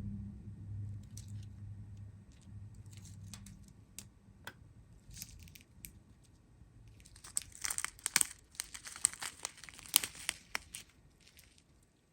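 Small plastic bags of diamond-painting drills crinkling as they are handled, the crinkles thickest and loudest in a cluster about two-thirds of the way through. A faint low hum sits under the first half.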